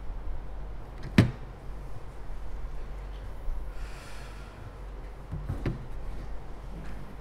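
A single sharp knock about a second in, then a softer knock near the end, over a steady low room hum.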